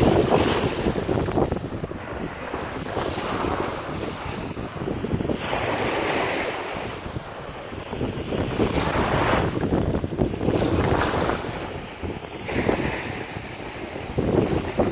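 Small waves washing up a sandy shore, with wind buffeting the microphone in irregular gusts.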